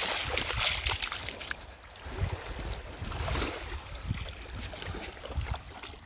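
Small waves washing gently onto a sandy shore, a soft hiss that is strongest in the first second and a half, with wind rumbling unevenly on the microphone.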